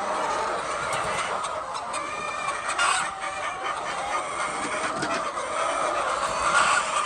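A flock of chickens clucking, many overlapping calls at once.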